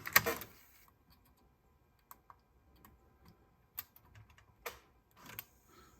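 A clatter of handling noise in the first half second, then a few sharp, separate clicks spaced about a second apart, like buttons being pressed or small parts being handled.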